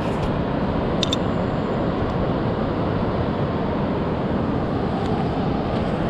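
Steady wind noise buffeting the microphone, with a couple of faint clicks about a second in.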